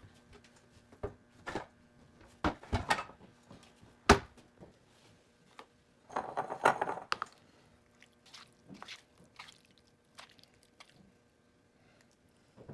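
Scattered clicks and knocks of kitchen utensils and dishes being handled on a tiled counter, with one sharper click about four seconds in and a short busier patch of knocks around six to seven seconds, over a faint steady hum.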